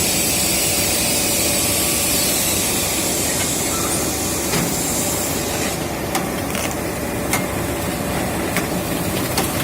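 Automatic power-cable coiling and wrapping machine running amid factory machinery: a steady hiss and hum. The hiss eases about halfway through, and a few sharp light clicks come in the second half.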